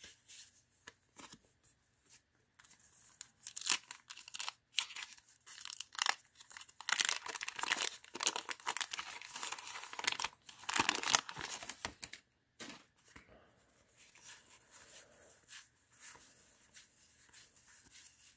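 Wax-paper wrapper of a 1990 Fleer basketball card pack crinkling and tearing open, in irregular rustles that grow densest and loudest about seven to eleven seconds in, then die down to light handling.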